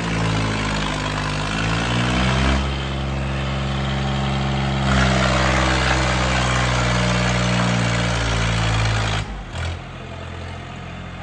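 Tractor's diesel engine running hard, its revs rising over the first two seconds and holding high, then falling off to a lower, quieter run about nine seconds in.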